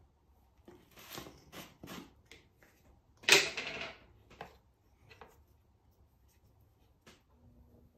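Clinks and scrapes of a glass jar and a brush being picked up and handled, with the loudest clatter about three seconds in and a few faint ticks after it. Near the end a faint steady hum starts, as the potter's wheel motor begins to turn.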